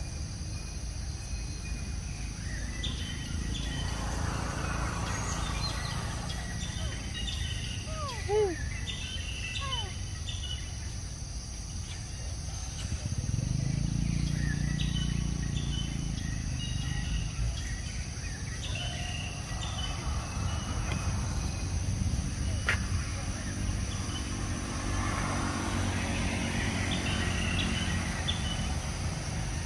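Outdoor ambience: a steady background hum with insects and birds chirping now and then, and a few short falling calls about eight to ten seconds in. A single sharp click comes near the end.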